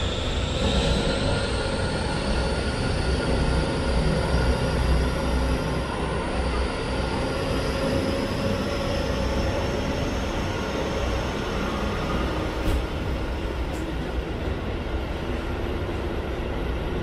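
Diesel locomotive (a JNR DE15) hauling the train out of the station, its engine heard loud and close from the adjoining passenger car, described as powerful. A higher engine note climbs over the first couple of seconds and then holds steady over a continuous low rumble of the running train.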